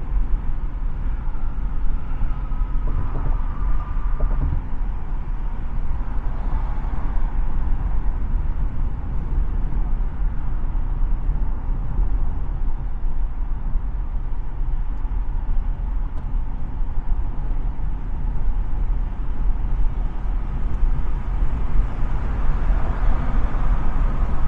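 Road noise inside a car cruising on a concrete freeway: a steady low rumble of tyres on the pavement and the engine.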